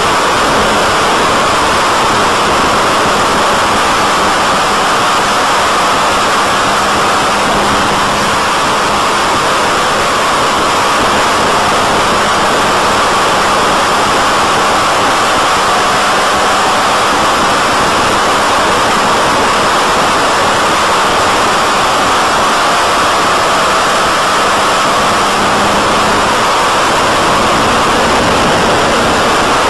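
Steady loud rushing hiss of airflow over the onboard FPV microphone of a BTE Delta Vortex flying wing in flight, with a faint electric motor tone drifting slowly up and down in pitch.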